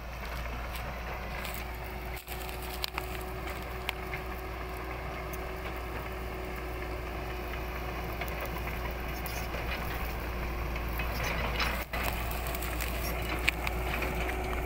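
Caterpillar hydraulic excavator's diesel engine running steadily at a distance, with a few brief knocks.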